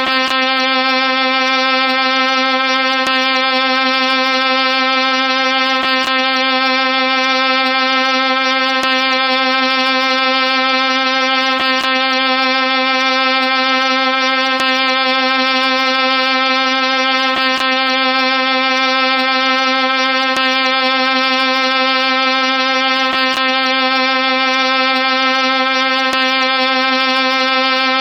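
A single buzzing tone held steadily at one low pitch, rich in overtones, with no change in pitch or loudness. A faint click sounds about every three seconds.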